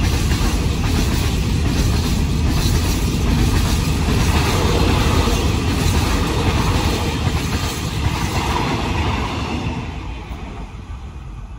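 Freight train of container flat wagons rolling past, wheels running and clicking over the rails. The noise fades as the last wagons go by near the end.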